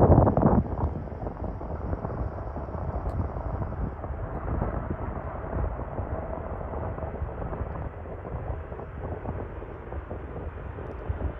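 Wind buffeting the microphone, with a strong gust right at the start, over the steady distant rumble of jet aircraft engines.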